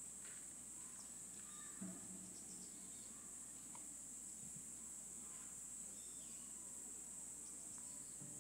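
Steady, high-pitched chirring of insects, with a few faint ticks and rustles.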